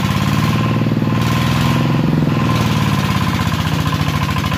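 Single-cylinder diesel engine of a two-wheel walking tractor running steadily, with rapid, even firing pulses.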